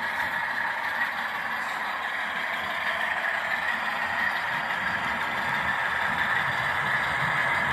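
Model diesel locomotives and freight cars running along the layout track: a steady whirring rumble of wheels on rail and motors, growing a little louder near the end.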